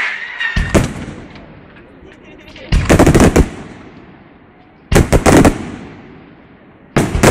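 Fireworks display: aerial shells bursting overhead in rapid clusters of sharp bangs, one cluster about every two seconds, each dying away in an echo.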